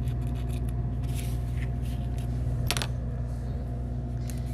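Light rustling and small taps of hands working paper flaps and balsa sticks on a model-airplane plan sheet, with one sharper click that rings briefly a little after halfway. A steady low hum runs underneath.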